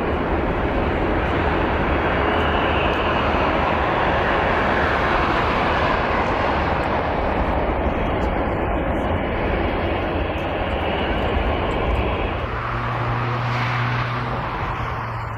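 Jet airliner's engines running loud and close as it passes, a dense roar that eases near the end while a low steady hum comes in.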